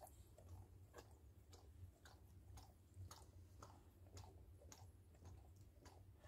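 Mother dog licking a newborn puppy: faint, wet smacking clicks, roughly two a second, over a low steady hum.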